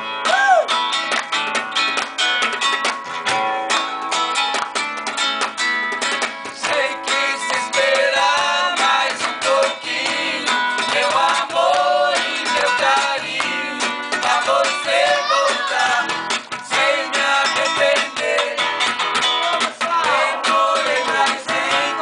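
Acoustic guitar (violão) strummed, with several voices singing a song together and quick percussion hits keeping the beat. The singing grows stronger from about seven seconds in.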